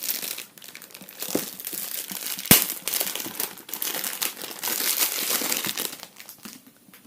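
Packaging rustling and crinkling as a speedcube is taken out of its box, with one sharp click about two and a half seconds in. It goes quiet near the end.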